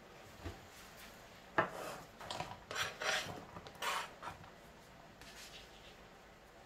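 Kitchen knife scraping sliced onion off a plastic cutting board into a non-stick frying pan: a sharp knock about one and a half seconds in, then a run of scrapes lasting about three seconds.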